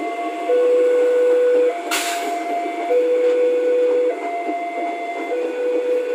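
Level-crossing warning alarm sounding in an alternating two-tone pattern, a lower and a higher note each held for about a second, over the running noise of an electric commuter train passing close by. A short hiss comes about two seconds in.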